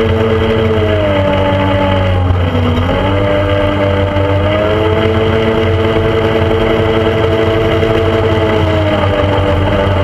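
Motorboat engine running under way, heard from on board; its pitch dips about two seconds in, climbs back, and eases off again near the end.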